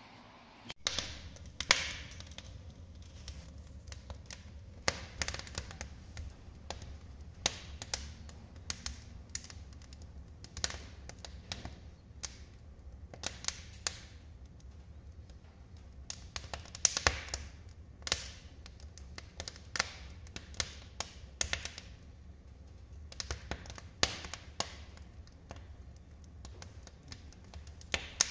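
Wood fire crackling in a fireplace: irregular sharp pops and snaps, some much louder than others, over a steady low rumble.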